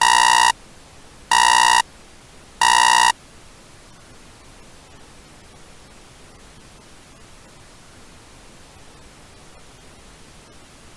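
Three identical short electronic buzzing data bursts, about a second and a third apart: the Emergency Alert System end-of-message (EOM) bursts that close a mock alert broadcast. After them comes a steady faint hiss of static.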